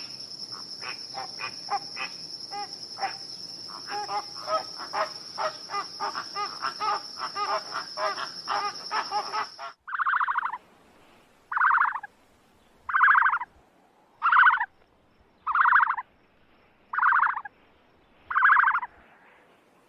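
A steady high insect trill with many short chirping calls over it. About ten seconds in, this cuts to a loud, rasping, pulsed animal call repeated about every second and a half, eight times.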